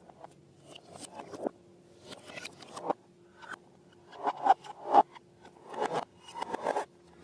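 Slime-making materials being handled: an irregular run of about a dozen short scraping, crackling bursts, the loudest around five seconds in.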